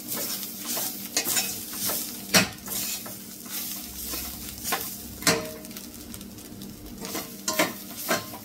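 Metal spoon stirring and scraping grated coconut and spices as they roast in a steel pot, with irregular scrapes and clinks against the pot over a light sizzle.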